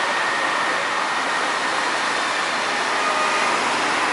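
Steady city street ambience: a constant wash of traffic noise.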